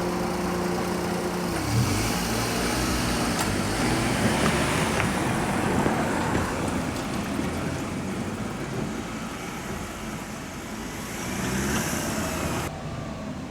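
Road traffic passing: a heavy vehicle's steady engine note drops in pitch about a second and a half in, followed by a continuous rumble and tyre hiss. The high hiss cuts off sharply near the end.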